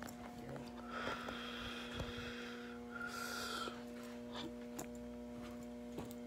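Steady low electrical mains hum. Two hissing sounds cross it: a longer one about a second in and a shorter one a little after three seconds, with a few faint clicks.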